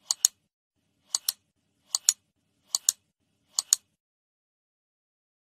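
Five keypad button presses on an electronic locker lock, one about every second, each a quick double click, keying in a code.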